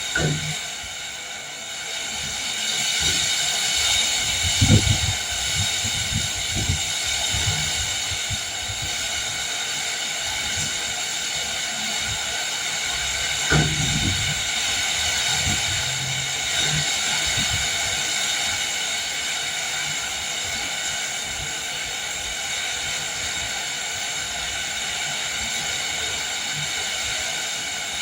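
Steady hiss of heavy rain driven by wind, with short low thumps about five seconds in and again about fourteen seconds in.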